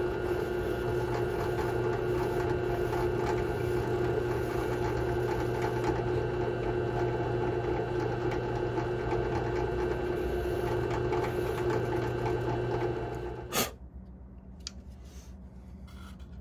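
Benchtop drill press running steadily with a small end mill in the chuck, milling a slot into the seam of a plastic ABS module housing. About three-quarters of the way through, the motor sound cuts off with a sharp click, leaving only faint handling noises.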